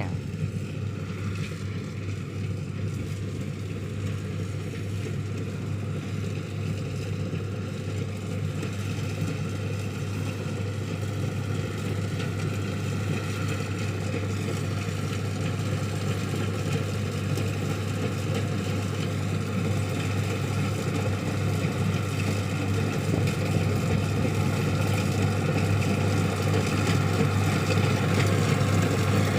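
Kubota DC-60 rice combine harvester running steadily in the field, a constant engine drone that grows gradually louder.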